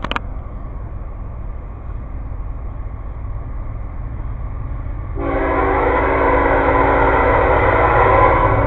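An approaching train's locomotive horn starts sounding about five seconds in and is held, over a low steady rumble.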